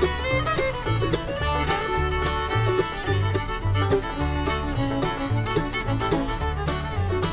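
Instrumental background music in a bluegrass style, banjo and fiddle over a steady bass beat.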